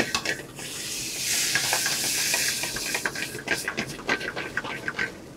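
Red wine poured into a hot sauté pan of sautéed onions and garlic, hissing and sizzling for about two and a half seconds as the wine hits the hot metal. Then a spoon clicks and scrapes against the pan as the sauce is stirred.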